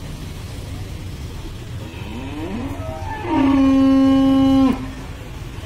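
A cow mooing once: a rising start, then a loud, steady, held call that ends abruptly.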